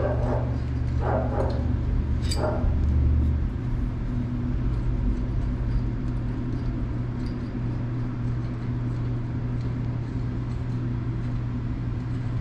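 A dog barks a few times in the first couple of seconds over a steady low hum. Faint metal clicks follow as the old fence latch is worked loose.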